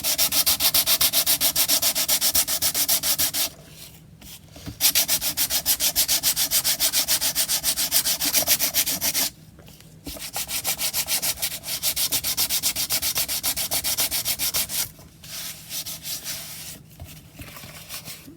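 Card tag coated with PVA gloss being sanded by hand: rapid back-and-forth rubbing strokes, about five a second, in runs broken by two short pauses and growing weaker near the end. The sanding takes off the top layer of gloss and breaks down the card until it is flexible.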